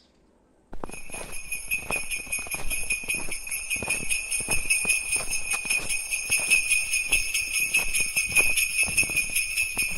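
Sleigh bells jingling, shaken over and over in a steady rhythm; they start suddenly about a second in.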